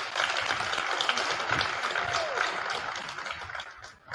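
Gymnasium crowd at a high school wrestling meet cheering and applauding as a bout ends, dying down near the end.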